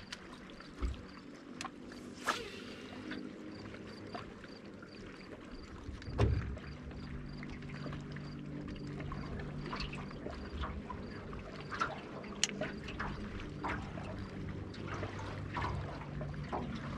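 Water lapping and trickling against the hull of a small fishing boat, with a steady low hum joining about six seconds in and a few light knocks and clicks.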